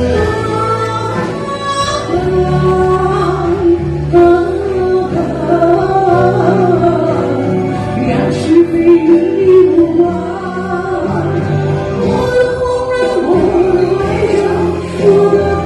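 Music: a slow ballad with a sung melody line over accompaniment, no words made out.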